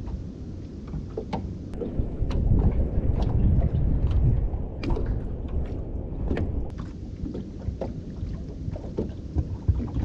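Small waves lapping and slapping against the hull of a small drifting fishing boat, with irregular splashes and knocks over a low wind rumble on the microphone. It is louder for a couple of seconds about two seconds in.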